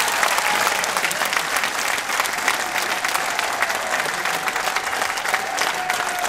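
Audience applauding steadily: dense clapping from many hands. A faint held tone sits under it, sliding down slightly in pitch and stopping near the end.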